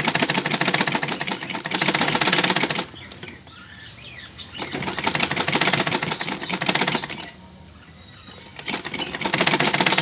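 Black household sewing machine stitching at speed, the needle going up and down in a rapid rattle. It stitches in three runs and stops twice for about a second and a half each time, as the sleeve seam is sewn round.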